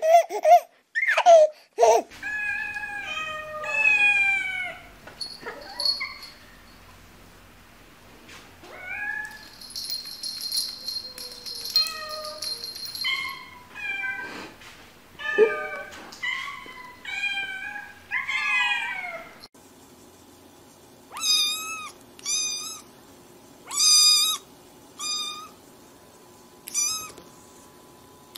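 Domestic cats meowing and mewling while they lick at a squeeze-tube cat treat: many short calls that rise and fall in pitch. In the last third these settle into short, high, evenly repeated calls about once a second.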